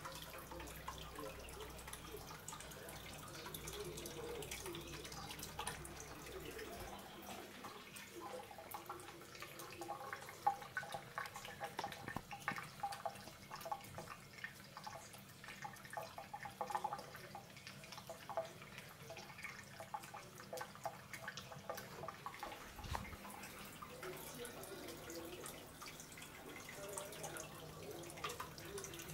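A thin stream of tap water trickling and dripping into a kitchen sink, with small irregular clicks as a Scottish Fold cat laps at the stream.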